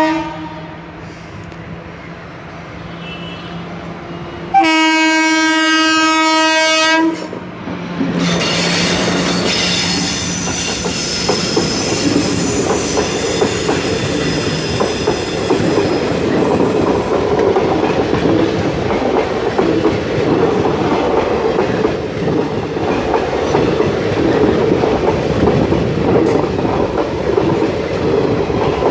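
Indian Railways WAP-4 electric locomotive sounding its air horn in one loud blast of about two and a half seconds. It then rushes past at speed with a high whine. The steady rumble and clickety-clack of the passenger coaches' wheels over the rail joints follow.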